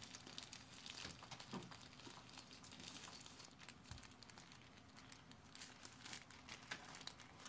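Faint crinkling of a plastic snack wrapper as a puppy chews and noses at it: a string of small, irregular crackles.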